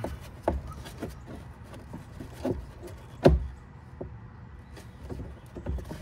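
Scattered knocks and clicks of the pedestrian-warning speaker box and its bracket being pushed and bent around by a gloved hand, with one louder knock a little past the middle.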